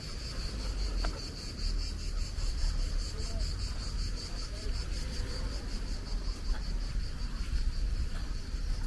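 Insects chirring steadily: a high, rapidly pulsing buzz that carries on without a break, over a low rumble.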